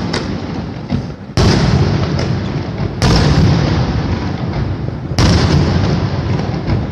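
Aerial fireworks going off: sudden loud bursts about a second and a half in, at three seconds and at about five seconds, each followed by a long rumbling tail.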